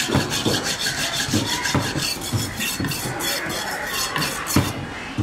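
A fish cutter's knife making rhythmic rasping strokes, about three a second, that stop shortly before the end.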